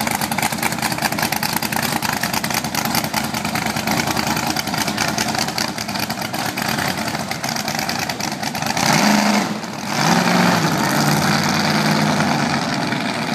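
Hot rod engine rumbling with fast, even firing pulses as the red 1930s coupe pulls away. About nine seconds in it revs up louder, with a brief drop in the middle, then settles back to a steady run.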